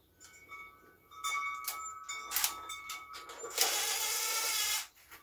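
Metal clinks and rattles as a socket and tool are fitted to the seat bolt. Then, about three and a half seconds in, a cordless drill runs for a bit over a second, backing out the 8 mm seat bolt, and stops.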